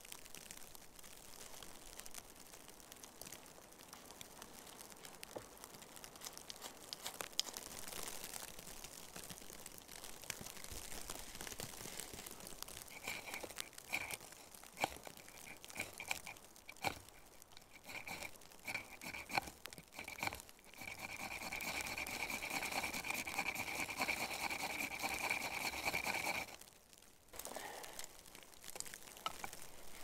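Rustling and crinkling as gear and dry wood shavings are handled. Then, while the tinder pile is lit, a high whistle-like tone comes in short spurts, holds steady for about six seconds, and cuts off suddenly.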